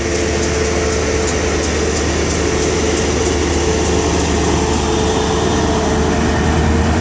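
InterCity 125 High Speed Train departing: Mark 3 coaches rolling past on the rails while the rear Class 43 power car's diesel engine hums steadily, with a steady whine above it. The engine hum grows louder near the end as the power car draws level.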